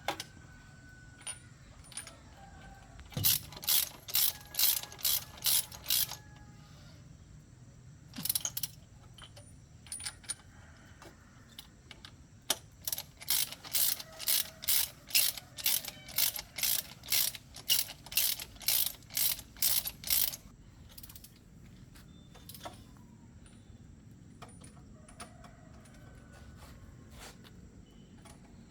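Hand ratchet wrench worked back and forth in quick, even strokes, each stroke a burst of pawl clicks, about two or three strokes a second. There are three runs of strokes: a short one a few seconds in, a brief one near the middle, and a longer one of about eight seconds.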